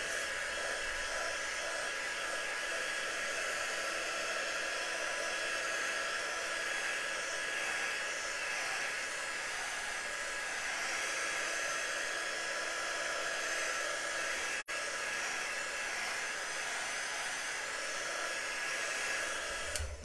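Handheld craft heat gun blowing steadily, drying freshly applied chalk paste on a wooden piece: a constant hiss with a faint whine. It cuts out for an instant about two-thirds of the way through and stops at the very end.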